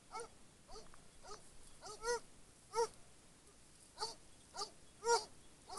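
Hunting dogs baying on a wild boar: faint, repeated short yelping barks, each rising and falling in pitch, coming irregularly about once or twice a second.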